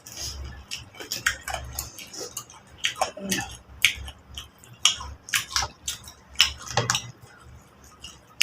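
Eating at a table: irregular clinks and taps of plates and utensils, with some chewing.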